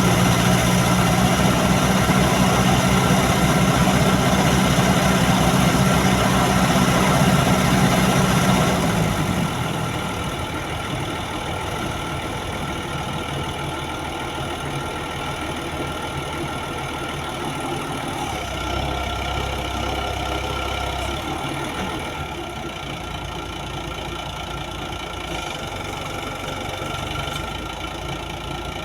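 Crane's diesel engine running under load with a steady low drone, then easing down about nine seconds in and running on more quietly at idle.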